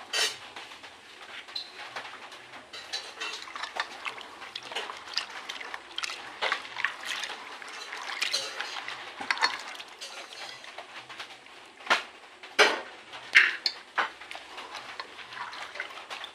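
Soaked soybeans being rubbed and scooped by hand in water in a metal pot: sloshing and splashing with the beans clicking against the pot wall, and a few louder knocks about three-quarters of the way through.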